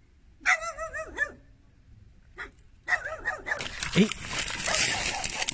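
A dog barking in quick strings of short yelping barks, once about half a second in and again near three seconds, followed by water splashing as a hand grabs in shallow muddy water.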